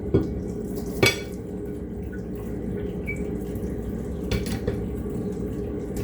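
Plates and cutlery clinking in a sink during hand washing-up, with a few sharp clinks about a second in and again about four seconds in, over steady background noise.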